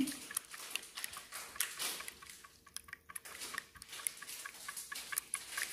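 Wire whisk beating eggs in a ceramic bowl: quick, irregular light clicks as the wires tap the bowl through the egg.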